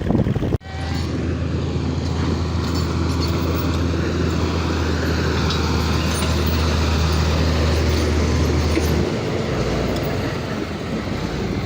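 Heavy-equipment diesel engine running steadily with a low, even hum over a noisy background. The hum drops away about nine seconds in.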